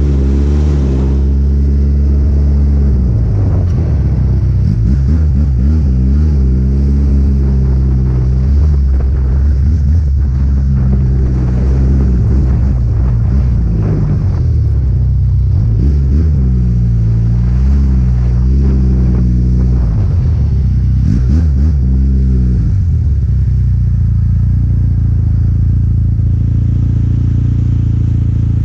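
Snowmobile engine running loud, its pitch rising and falling over and over as the throttle is worked, then settling into a steady, lower note about 23 seconds in.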